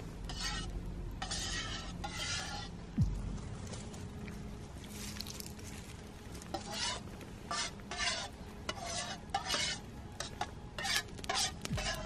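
A metal spoon scraping and stirring in a metal camping mug of soup, in short repeated strokes that come thicker in the second half. A single dull thump about three seconds in.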